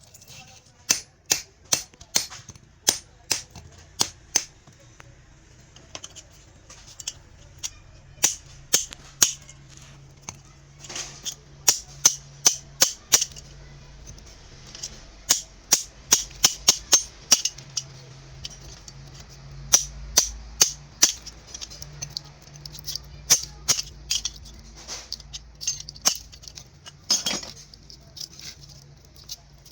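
Repeated sharp metal strikes in irregular runs of several quick blows, as the copper winding is worked out of a washing machine motor.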